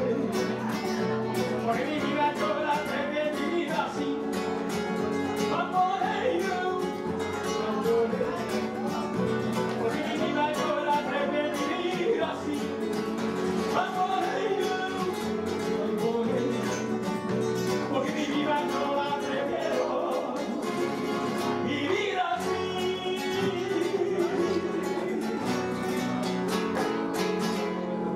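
Live flamenco-rumba fusion: two acoustic guitars, one of them a flamenco guitar, strummed in a driving rhythm, with a man singing into a microphone. The song ends on a final strum near the end.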